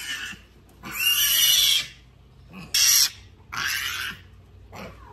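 A piglet squealing loudly in three harsh bursts while being held and washed: a long squeal about a second in, then two shorter ones.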